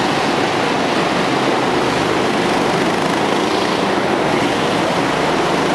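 Go-kart engines running steadily as several karts lap an indoor track, heard as a continuous dense drone in the hall.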